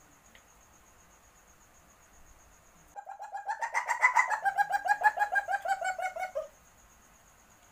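Civet in heat giving its mating call: a rapid run of short pitched pulses lasting about three and a half seconds. It starts about three seconds in, rises slightly in pitch and then drops away.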